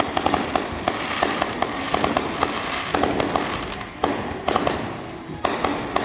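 Aerial fireworks going off in a rapid string of sharp pops and bangs, several a second, with crackling between them.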